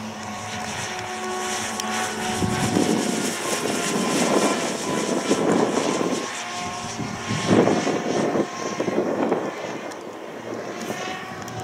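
Electric-powered RC Cessna 336 Skymaster model flying past overhead: a steady motor and propeller whine, with rougher rushing noise that swells as it comes closest in the middle of the pass and then fades.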